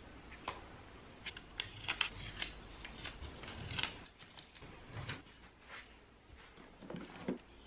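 Household handling sounds: a run of light knocks and clicks as objects are lifted off and set down, and short rustles of paper and tape being peeled off a wall.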